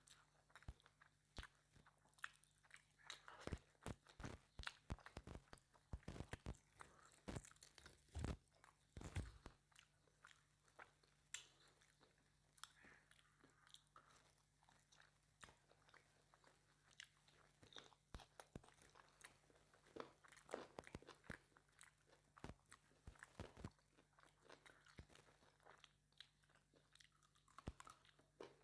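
Close-miked chewing and biting of mutton curry and rice: irregular crisp clicks and crunches throughout, with two louder bites about eight and nine seconds in.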